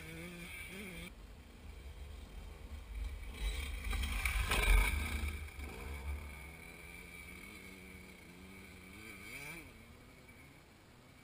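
Dirt bike engines revving in the distance, their pitch rising and falling, with a gust of wind rumbling on the microphone that peaks about halfway through and dies away.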